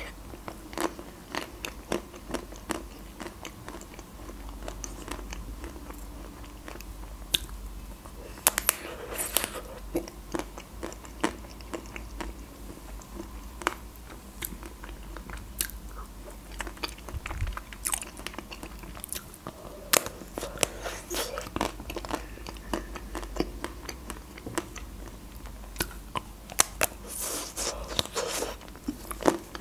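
Close-up eating sounds: biting into the crisp white-chocolate coating of a Magnum ice cream bar and chewing, a stream of small cracks and wet mouth clicks, busiest around nine seconds in and near the end.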